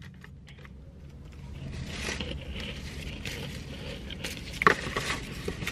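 Plastic packaging and shopping bag rustling and crinkling as a pack of gift bows is taken out and handled, with a few small clicks, over a low steady hum.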